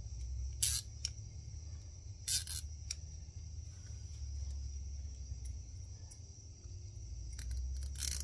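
A handheld zip tie tensioning tool being squeezed to pull a cable tie tight, giving a few sharp clicks spaced seconds apart, over a steady high hiss and low handling rumble.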